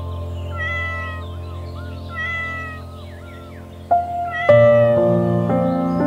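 Kitten mewing: two high, thin mews about a second and a half apart, over background music that grows louder about four seconds in.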